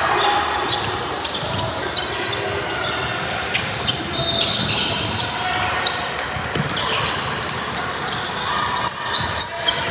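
Basketball game in a gym: a ball bouncing on the court amid scattered sharp knocks, over a steady hum of crowd voices, with a few louder knocks near the end.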